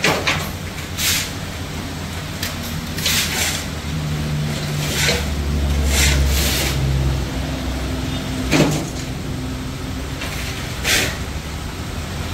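A Volkswagen Scirocco's engine running as the car creeps slowly forward, its pitch rising a little about four seconds in and settling again near eight seconds. Several short, sharp noises come and go over the engine.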